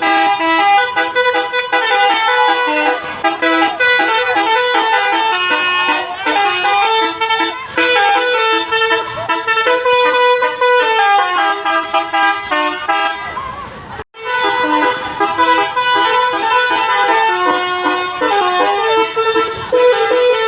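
Telolet bus horns, multi-tone air horns playing quick melodic tunes, with the two buses sounding them in turns. About two-thirds of the way through the horns fade and cut out for an instant, then the tunes start again.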